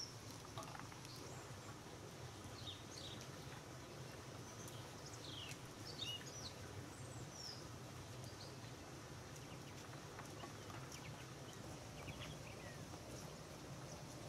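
Small birds chirping now and then, short quick rising and falling chirps, faint over a low steady hum.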